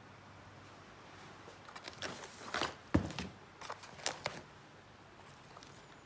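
A short run of knocks, clicks and rustles from things being handled, the loudest knock about three seconds in.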